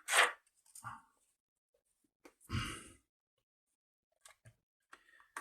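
A quick intake of breath, then about two and a half seconds in a longer breathy exhale like a sigh, with a few faint small clicks in between.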